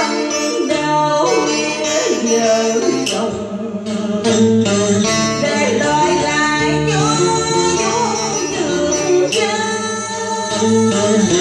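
Vọng cổ singing: a voice holding long, sliding, ornamented notes over plucked guitar accompaniment.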